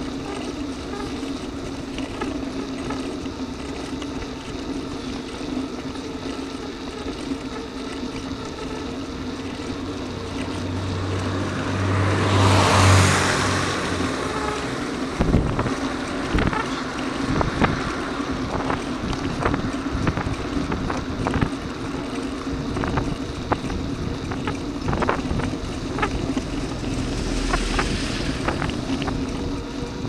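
Steady riding noise from a camera on a moving bicycle. A car passes about 12 to 13 seconds in, swelling up and fading away. After that come frequent sharp knocks and rattles from the bike going over the uneven asphalt.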